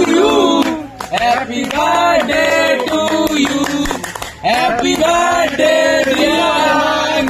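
A man's voice singing a melody over music, in long held phrases with brief breaks about a second and about four seconds in.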